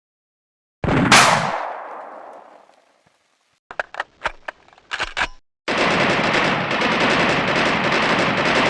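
Gunfire sound effects. One loud shot about a second in rings out and fades over two seconds, then come several short scattered shots, then continuous rapid machine-gun fire from a little past halfway. Dead silence separates the parts.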